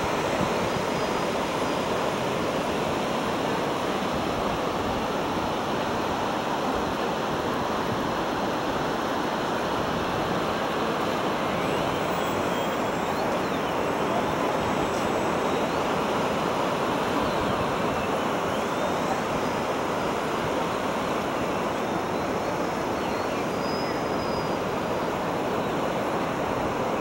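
Steady rush of breaking ocean surf. Over it, a faint whine from a radio-controlled model Yak 55's engine rises and falls in pitch as the plane manoeuvres overhead, mostly in the second half.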